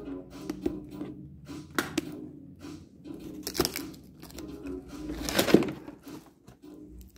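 Packaging and product being handled: scattered taps and clicks, with two longer rustling, crinkling stretches past the middle. A faint steady hum of background music lies underneath.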